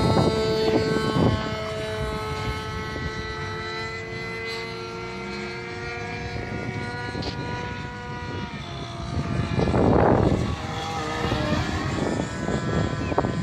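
Radio-controlled model airplane's engine and propeller running in flight, a steady buzzing drone whose pitch shifts slowly and drops about eight to nine seconds in. Loud rushes of noise break in about a second in and again around ten seconds in.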